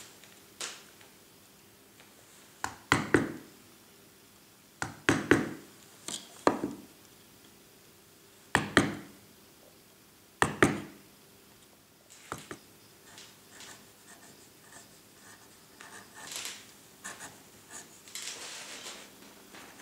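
Round carver's mallet knocking the handle of a carving gouge, driving cuts into limewood: about a dozen irregular knocks, some in quick pairs, over the first twelve seconds. After that come softer scraping sounds as a gouge is pushed by hand, paring thin shavings.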